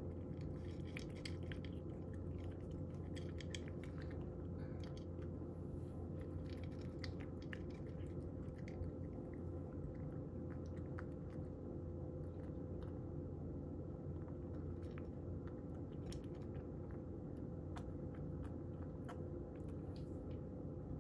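A cat crunching dry kibble: scattered small, crisp crunches and clicks in bursts, over a steady low hum.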